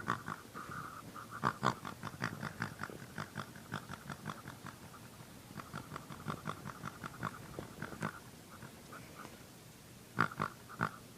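A sleeping pig snoring and grunting in quick, irregular snorts, with two louder snorts near the end.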